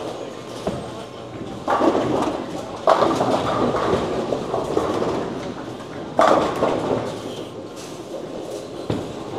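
Bowling center noise: bowling balls rolling down the wooden lanes and pins crashing. Three loud crashes come about two, three and six seconds in, each dying away over a second or so.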